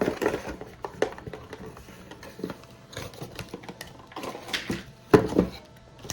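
Rustling and clicking of packaging and small items being handled and set aside on a table, with irregular light knocks and a louder knock about five seconds in.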